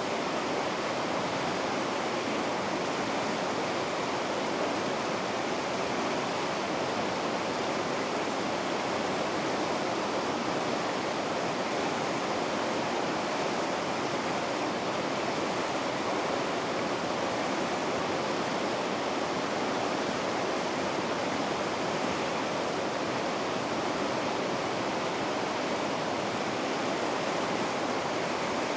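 Water rushing over river rapids: a steady, even rush with no breaks or separate splashes.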